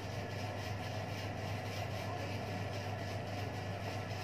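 Steady low hum with an even hiss over it, unchanging throughout.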